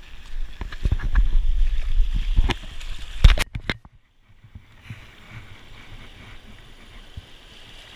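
Camera handling noise: heavy rumbling and rubbing with several sharp knocks, the loudest about three seconds in, then a brief dropout. After that, a steady hiss of shallow water over rocks.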